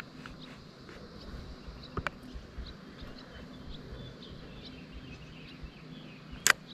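Faint birds chirping in the background, with two sharp clicks about two seconds in and a louder sharp knock near the end.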